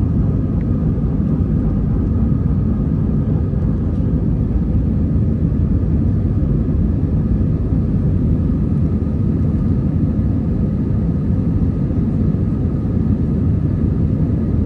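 Airbus A320's jet engines at takeoff thrust: a loud, steady rumble with a few faint steady tones above it.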